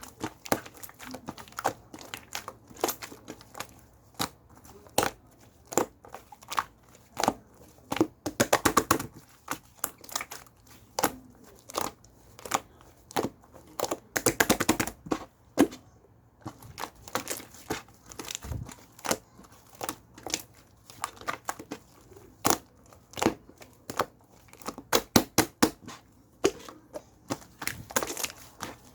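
Slime being squeezed, pressed and stretched by hand, giving irregular sticky pops, clicks and crackles, with a few quick runs of crackling.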